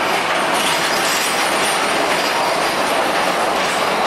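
PeruRail passenger train rolling slowly past, a steady rumble and rush of its wheels on the rails.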